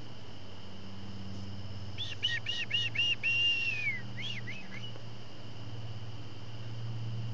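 A bird calls about two seconds in: five quick repeated whistled notes, then a longer note that slides down, then a couple of short notes. Under it, a steady chorus of crickets.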